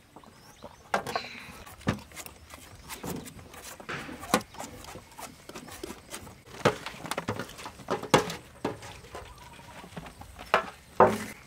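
Irregular short knocks, clicks and scrapes of hand work with coconut on a metal tray: peelers shaving young coconut flesh and pieces dropping and being handled on the tray. The loudest knocks come near the start, in the middle, and twice near the end.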